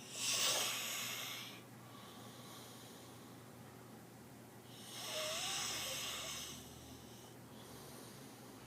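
A sleeping person snoring loudly: two long, hissing snores about five seconds apart that sound like a snake, with fainter breaths between them.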